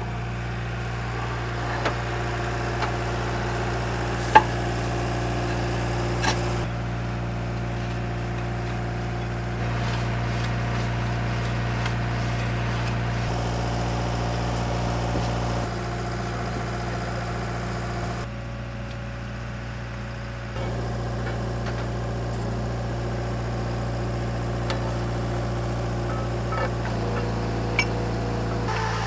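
Drilling rig's engine running steadily, with a few sharp metallic clicks or knocks. It eases off for about two seconds a little past the middle, then picks up again.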